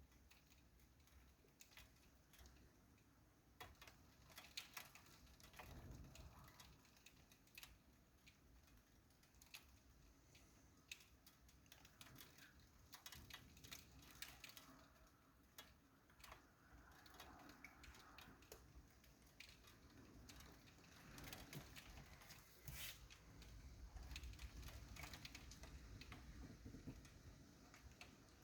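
Faint, irregular tapping of raindrops during a thunderstorm. Low rumbles swell up about six seconds in and again in the last few seconds.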